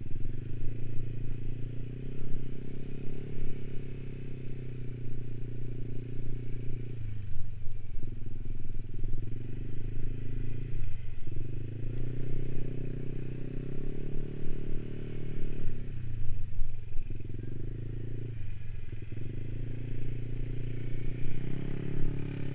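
Yamaha 155 cc single-cylinder scooter engine running under way with a steady note. Four times the revs drop and then pick up again as the throttle is eased off and reopened.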